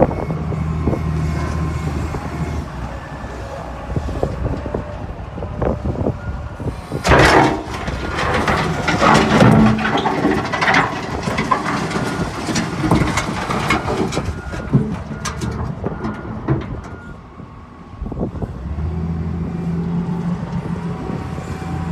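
Diesel engine of heavy equipment running steadily, with a spell of dense metal clanking and knocking in the middle.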